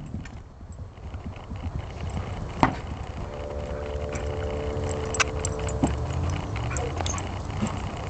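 Horses moving about a sandy paddock: scattered hoof thuds and clicks over a steady low rumble of wind on the microphone, with a faint steady hum for a couple of seconds near the middle.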